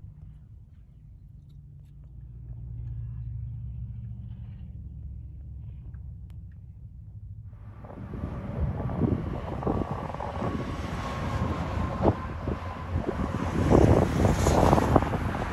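Low rumble of a semi-truck passing on the highway; about halfway through it gives way to loud highway traffic rush with wind buffeting the microphone, louder near the end.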